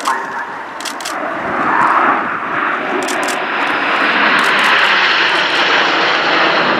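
A formation of nine Red Arrows BAE Hawk T1 jets flying over, their Adour turbofans making a loud, rushing jet noise. It swells about two seconds in and then holds steady.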